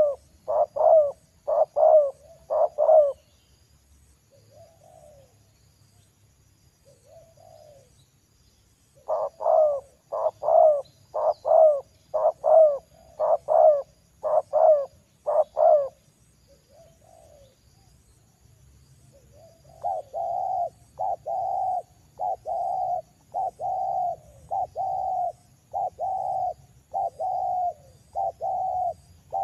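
Spotted dove cooing: runs of short, repeated coo notes in three bouts separated by pauses, the last bout steadier in pitch.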